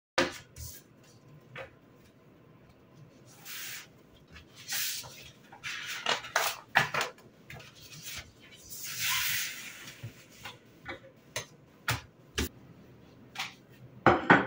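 Household handling noises: a series of sharp clicks and knocks, with a few short hissing or rustling spells, the longest lasting about a second and a half.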